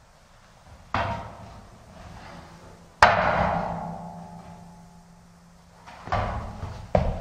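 Heeled shoes knocking against the steps of a metal stepladder: a knock about a second in, then a louder one about three seconds in that leaves the ladder ringing for a couple of seconds. Near the end comes a quick run of knocks and thuds as the feet move on the steps.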